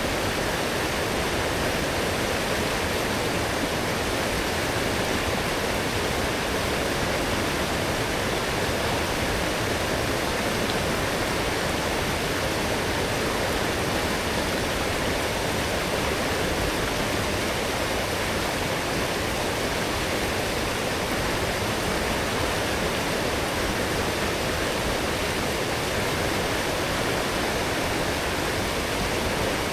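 A strong forest stream swollen by heavy rain, its water rushing steadily and evenly.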